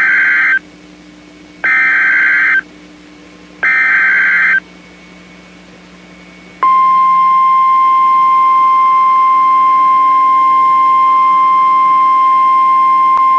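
NOAA Weather Radio Emergency Alert System header announcing a civil emergency message: three bursts of SAME digital data tones, each about a second long and two seconds apart. A couple of seconds later comes the steady 1050 Hz warning alarm tone, which starts about six and a half seconds in and holds on one pitch.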